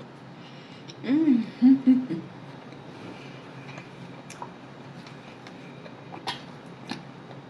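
A woman humming a closed-mouth "mm" while eating, three short rising-and-falling hums about a second in, followed by a few faint clicks of eating.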